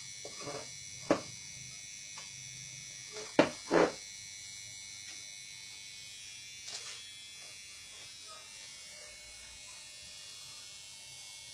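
A few irregular knocks and clicks, as of the clock case and its fittings being handled, the loudest a close pair about three and a half seconds in. A steady faint high-pitched whine runs under them.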